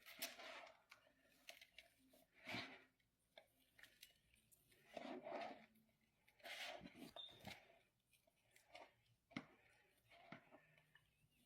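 Quiet crunching and crumbling of a glitter reform (a pressed block of powder) being crushed, with scattered sharp crackles and several soft half-second bursts of heavy breathing.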